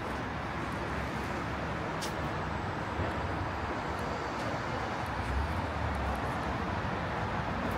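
City street traffic: a steady wash of passing cars, with a low rumble that swells briefly about five seconds in and a single sharp click about two seconds in.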